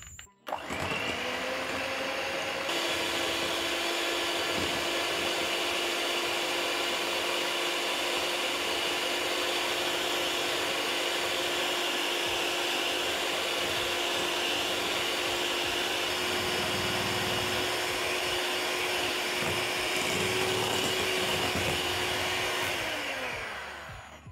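Electric hand mixer running steadily, its beaters whipping margarine, sugar and eggs into a creamy batter. The motor spins up with a rising pitch just after the start and winds down with a falling pitch near the end.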